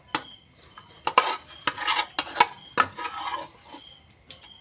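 Metal spatula scraping and clanking against a metal wok while stir-frying, making an irregular string of knocks and scrapes.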